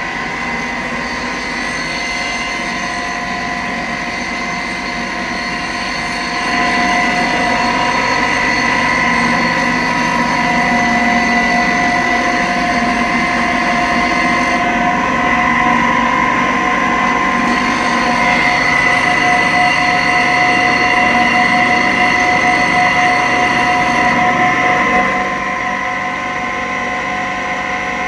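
An electric motor running steadily with a whine of several fixed pitches. It gets louder about six seconds in and drops back near the end.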